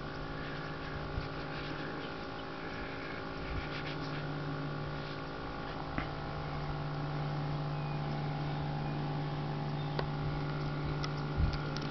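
Steady low motor-like hum made of several held tones, with a few light clicks.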